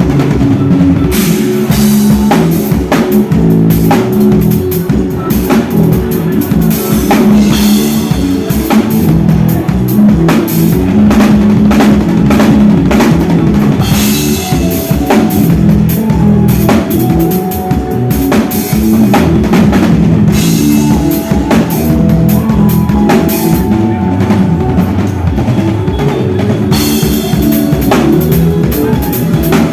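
Live band playing an instrumental passage at a soundcheck, loud and continuous, with the drum kit's kick and snare most prominent over bass and sustained pitched instruments.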